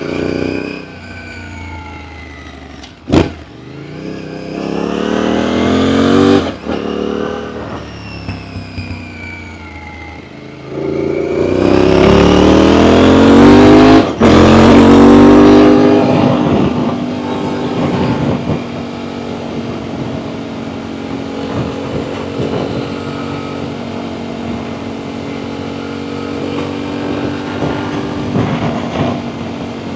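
Aprilia Tuareg 660's parallel-twin engine, breathing through an aftermarket Akrapovic full exhaust, pulling hard as the bike accelerates. The engine note rises twice, with a drop between the rises and a brief cut about 14 s in, then settles to a steady cruise for the second half. A single sharp knock comes about 3 s in.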